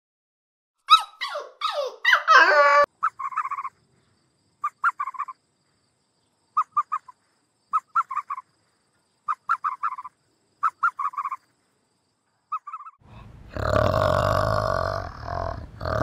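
Dogs whining in high-pitched yelps that fall in pitch. Then a run of short chirping trills of three to five quick notes, about every second and a half. About thirteen seconds in, a great ape starts loud, deep, rough grunting calls, the loudest sound.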